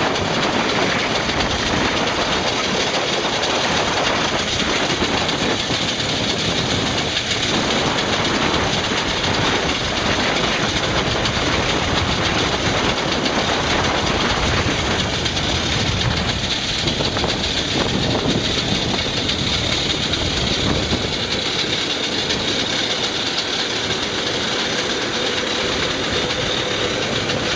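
Loud, steady rumble and rush of a vehicle under way, with a faint rattle.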